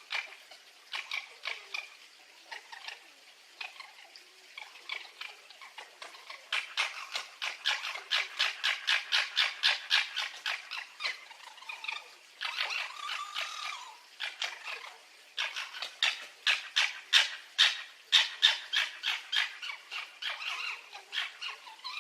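Fox calling in long runs of short, sharp chattering yelps, about five a second, with a brief drawn-out whine in the middle.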